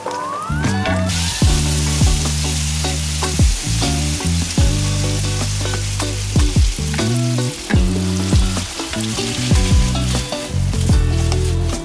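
Food sizzling in a hot frying pan, the sizzle starting about a second in, over background music with a steady low bassline.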